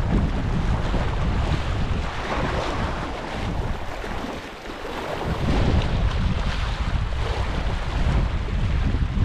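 Wind buffeting the microphone: a heavy, uneven low rumble that comes in gusts and eases briefly about four to five seconds in.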